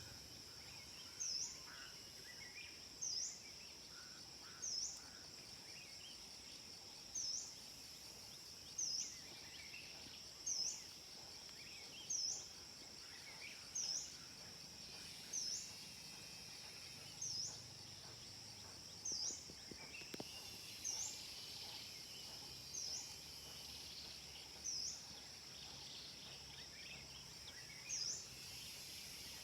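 Forest insects, cicadas and crickets, keep up a steady high drone. Over it a short, sharp high note repeats about every one and a half to two seconds, and fainter bird chirps come and go.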